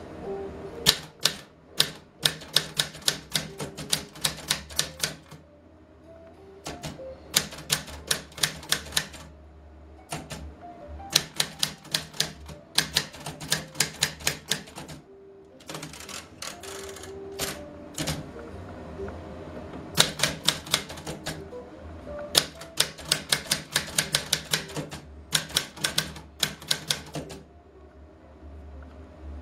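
Typing on a portable manual typewriter: runs of quick, sharp key strikes lasting a few seconds each, broken by short pauses.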